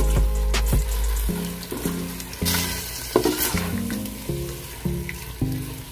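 Pork sizzling as it browns in a stainless steel pot, stirred with a spoon that scrapes and knocks against the pot, over background music of evenly repeating notes. A low hum stops about a second in.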